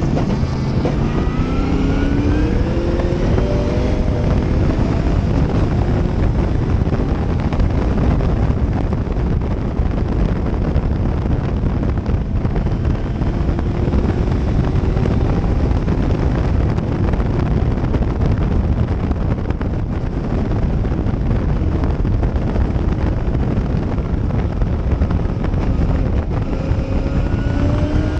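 Gentry Cobra race car's engine at full throttle, heard from inside the open cockpit with heavy wind rush. The engine note climbs as the car accelerates in the first few seconds and again near the end.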